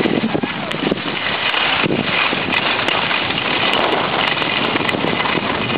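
Wind rushing over the camera microphone and skis hissing and scraping over the snow during a downhill run, with occasional sharp clicks.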